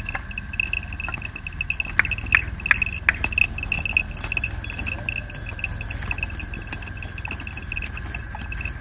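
Small bells on a pair of ploughing oxen clinking and jingling, sharpest in a cluster of four strokes about two to three seconds in, over a steady, rapidly pulsing high tone and a low rumble.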